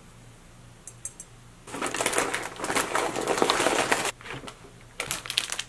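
Rummaging in a paper shopping bag: paper and plastic wrapping crinkling for about two and a half seconds, starting after a short pause, then a few brief rustles near the end.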